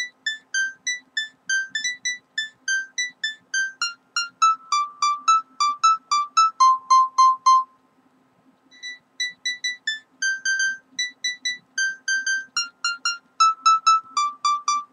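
Background music: a simple electronic melody of short beeping notes, several a second, that breaks off for about a second in the middle and stops near the end.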